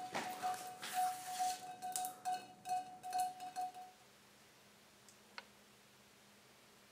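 A steady pulsing tone mixed with sharp clicks and clatter, cut off suddenly about four seconds in. After that only a faint low hum remains, with a single small tick.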